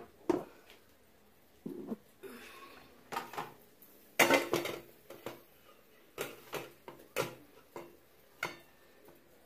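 Stainless steel cooking pot being handled: a series of metal clanks and knocks, the loudest cluster about four seconds in.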